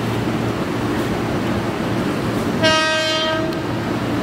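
Ex-JR 203 series electric commuter train sounding its horn once, a single steady-pitched blast of about a second, about two and a half seconds in, over the steady rumble of the approaching train.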